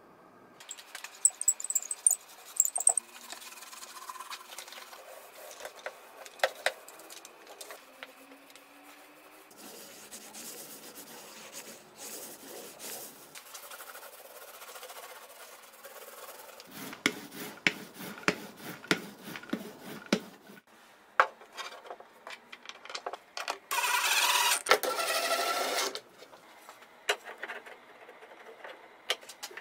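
Small paint roller rubbing over plywood in repeated strokes, among scattered clicks and knocks of handling the tray, roller and boards. A louder rasping noise lasts about two seconds in the last third.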